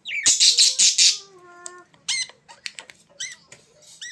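A bird squawks loudly and harshly for about a second. A shorter pitched call follows, then a run of short chirps.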